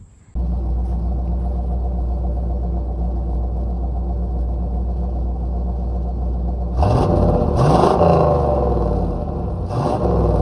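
Chevrolet small-block V8 of a 1987 Camaro IROC-Z28 idling steadily, then revved twice, the pitch rising and falling about seven seconds in and again near the end.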